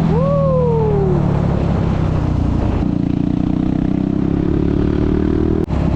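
Yamaha WR250 supermoto's single-cylinder four-stroke engine running on the move, its pitch climbing steadily through the second half as it accelerates. A short whistle-like tone falls in pitch about a second in, and the sound cuts out for an instant near the end.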